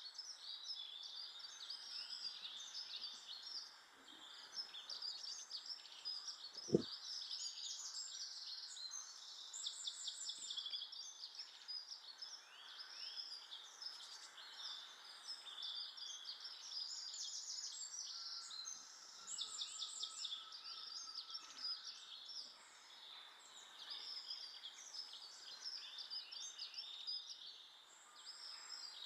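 Garden birds chirping and twittering continuously, many short high calls and quick trills overlapping. A single sharp knock sounds about a quarter of the way through.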